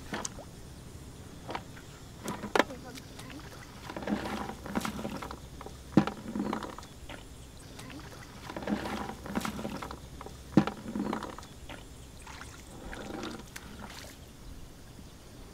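Hands splashing and slapping in shallow muddy water while groping for fish, with three sharp slaps standing out. Children's voices talk in between.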